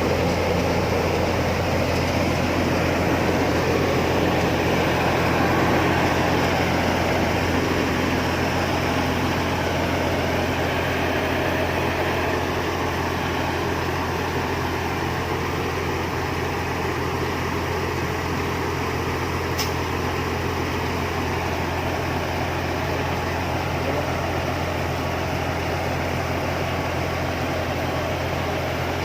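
Combine harvester's diesel engine running steadily at a constant speed, with one brief tick about twenty seconds in.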